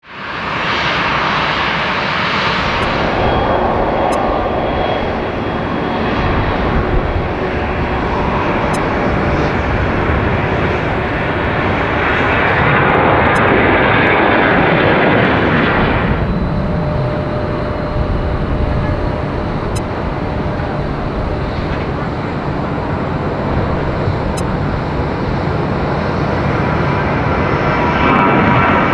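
Jet airliner engines running loud and steady: first an Airbus A321, then a Boeing 737-700. The sound changes abruptly about 16 seconds in, when it switches from one aircraft to the other.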